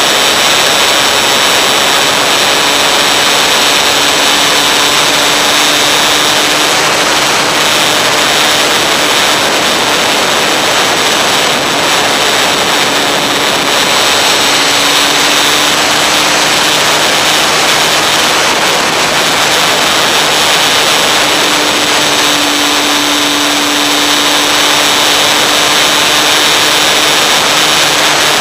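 Steady rushing of air over the onboard camera of an RC model plane in flight, with a faint low hum that wavers slightly in pitch.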